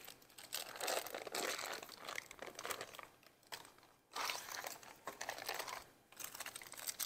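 Foil wrapper of a cream cheese brick crinkling as it is peeled open by hand, in several stretches with short pauses between.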